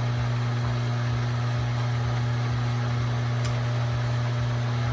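Milling machine running with a steady hum while a drill bit is fed down into a metal plate held in the vise.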